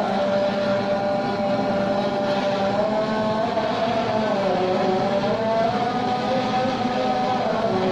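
A motor running continuously, its whine slowly wavering in pitch over a steady lower hum.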